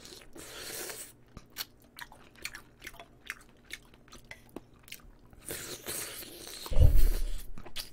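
Close-miked chewing and biting of braised short ribs (galbijjim) with chicken gizzards: scattered wet clicks and small crunches. A loud low thump with a short rush of noise comes about seven seconds in.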